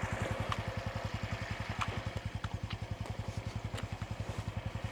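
Honda CT125's single-cylinder four-stroke engine idling with an even, steady beat of about a dozen pulses a second. A few faint, sharp ticks sound over it.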